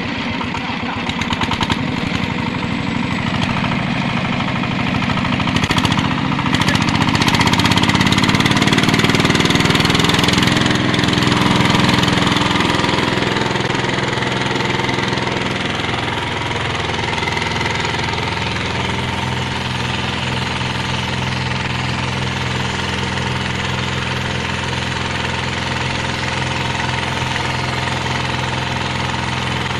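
KLW-150D diesel plastering machine running: its diesel engine runs steadily, rises in pitch and loudness from about six seconds in, then settles back to a steady run.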